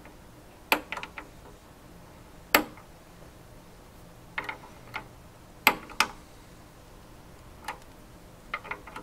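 A dozen or so sharp, irregular clicks and taps of a fitting tool working a compression fitting as it is tightened onto a CPU water block. The loudest clicks come about two and a half and five and a half seconds in.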